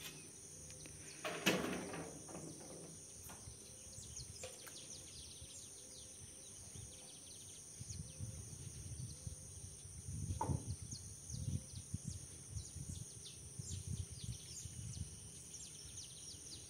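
Quiet open-air ambience: many short, high, falling bird chirps over a steady high insect whine. Faint low rumbling comes and goes in the second half.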